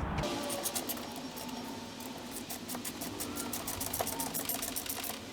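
Ratchet wrench with a 10mm socket clicking in a quick, even run while driving in the bolts that hold the radiator fan motor.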